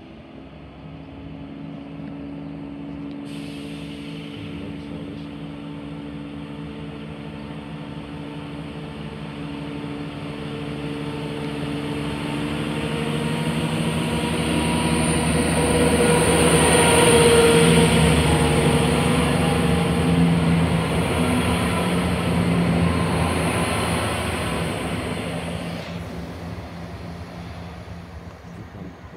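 Chiltern Railways Class 168 diesel multiple unit approaching and passing through a station. Its underfloor diesel engines and wheels on the rails grow steadily louder, peak about halfway through, then fade as it draws away. A high hiss from the rails comes in a few seconds in and stops near the end.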